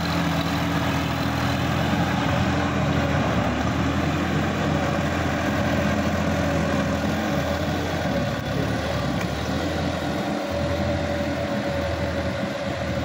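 Sonalika DI-50 RX tractor's diesel engine running steadily under load while its rear rotary tiller churns through flooded paddy mud. The sound eases slightly as the tractor moves away.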